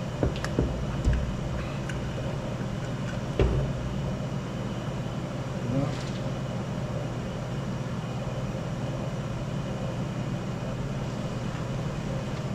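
A few short metal clunks and knocks as the blower is worked off a Detroit Diesel 4-53T engine, over a steady droning hum. The loudest knock comes about three and a half seconds in.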